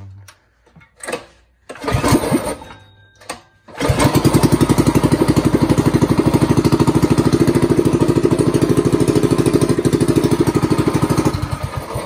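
Small single-cylinder mini bike engine, pull-started. A few short bursts come before it catches about four seconds in. It then runs at a steady speed with a fast, even chugging for about seven seconds and dies away near the end.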